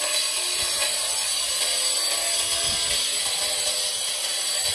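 A tool sawing or cutting, a steady rasping noise.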